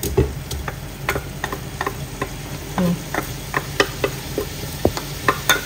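Wooden spoon scraping and tapping curry paste out of a small ceramic bowl into a pot of coconut milk: irregular light clicks, two or three a second, over a steady low hum.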